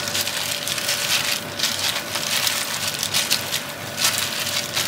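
Plastic-gloved hand kneading and mixing pieces of beef in a bowl of soy-sauce marinade: wet squelching and crinkling rustles in irregular strokes.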